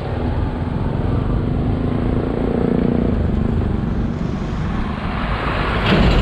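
Road vehicle traffic: a steady low rumble of engine and tyre noise, with an engine hum swelling in the middle and a louder rush of noise near the end.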